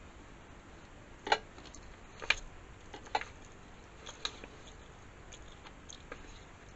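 A fork clicking and scraping against a foil pizza tray: four sharp clicks about a second apart, then a few fainter ones.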